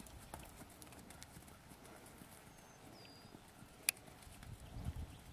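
Faint, muffled hoofbeats of a buckskin horse on sand arena footing, with a single sharp click about four seconds in.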